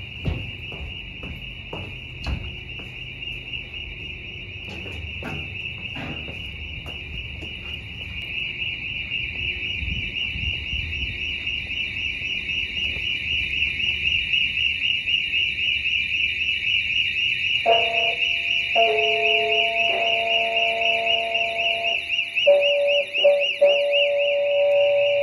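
A continuous high-pitched, fast-pulsing trill like an alarm, growing steadily louder as it is approached, with a few footsteps or knocks in the first seconds. About two-thirds of the way in, steady lower pure tones join it and change pitch several times.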